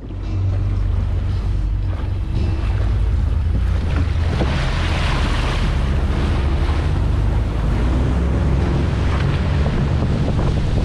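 Boat engine running under way, with wind rushing over the microphone and water splashing against the hull; the sound comes on suddenly at the start and then holds steady.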